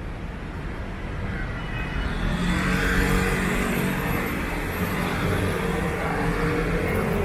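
Road traffic: motor vehicle engines running, with road noise that swells about two seconds in as vehicles pass.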